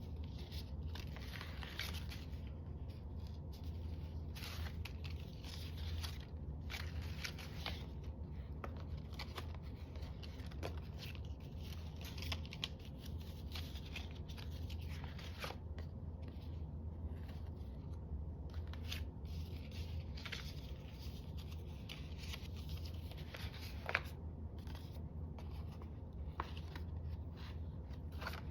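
Sewing thread being drawn through paper and the pages being handled: intermittent short rasps and rustles, over a steady low hum.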